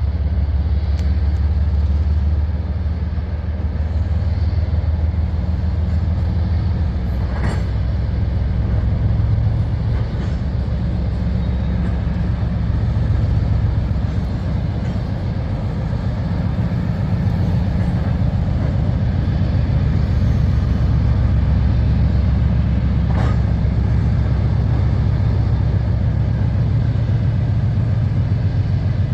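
Loaded open-top gravel hopper cars of a freight train rolling slowly past, making a steady low rumble, with two brief sharp clicks from the wheels.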